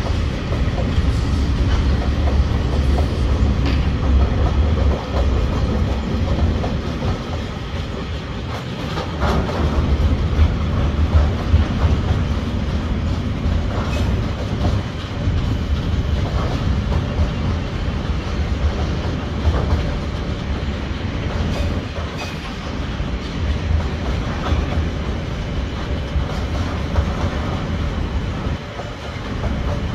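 Container freight train's loaded wagons rolling steadily past: a continuous low rumble with scattered clicks of the wheels over the rails.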